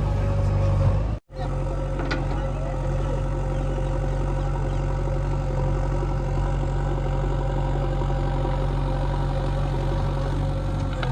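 Heavy diesel engine running steadily at constant speed. The sound cuts out for a moment about a second in.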